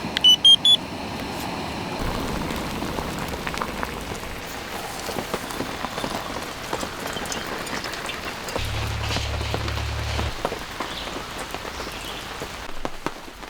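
Steady rain falling, with many drops tapping on a tarp overhead. Right at the start, four short electronic beeps step up in pitch, and a low hum sounds for a couple of seconds near the end.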